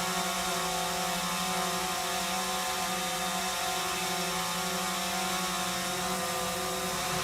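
New cast-iron and stainless-steel sump pump running under test, its electric motor giving a steady hum.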